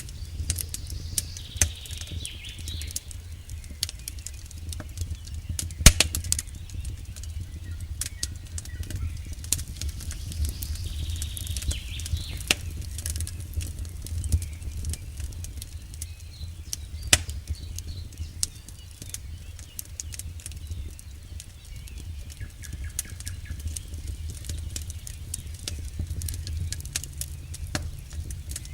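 Wood campfire burning: burning logs crackle and pop irregularly over a steady low rumble, with one sharp, loud pop about six seconds in.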